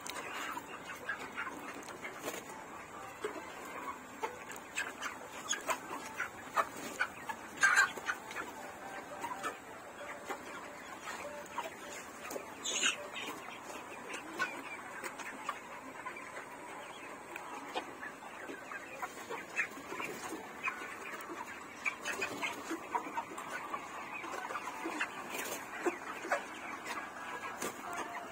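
A flock of poultry chickens clucking and chattering continuously, many birds at once, with a sharp louder call or knock about a quarter of the way in.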